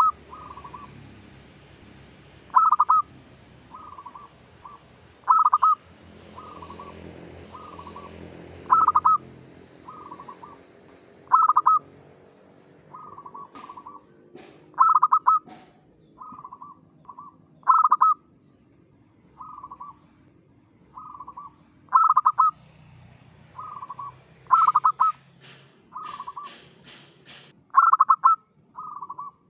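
Zebra dove (perkutut) cooing: a repeated song phrase about every three seconds, each opening on a loud accented coo followed by a run of softer coos. A few sharp clicks come near the end.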